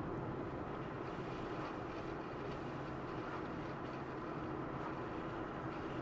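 Steady road and engine noise of a car driving at a constant speed, with a low, even hum under it.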